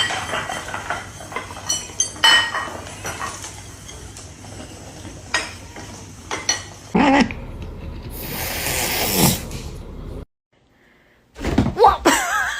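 Light clinks and sharp clicks, like dishes and cutlery being handled, followed by a few seconds of hissing noise. It drops abruptly to silence for about a second, then a new, louder passage begins.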